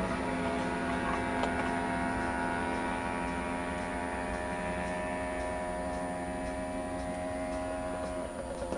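Several small two-stroke moped engines running flat out in a drag race, a steady drone that fades slowly as they pull away, its pitch shifting about eight seconds in.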